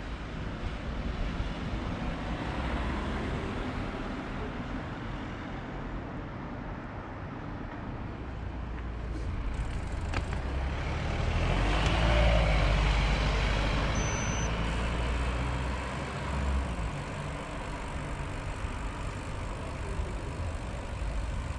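Road traffic: a motor vehicle passes close by, swelling to its loudest about halfway through, over a steady low rumble.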